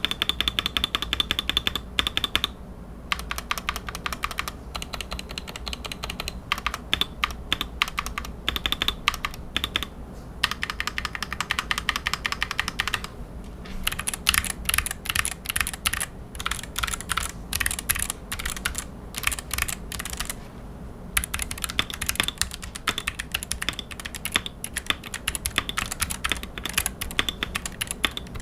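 Fast typing on a stock, unmodified Gamakay MK68 mechanical keyboard with optical Gateron Yellow switches: dense runs of key clicks, with a few brief pauses.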